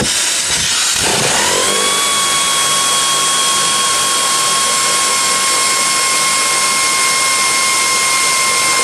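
Pneumatic air ratchet running a rear strut-mount nut off: a loud rush of air, rough for about the first second, then a rising whine that settles into a steady high tone as the nut spins off.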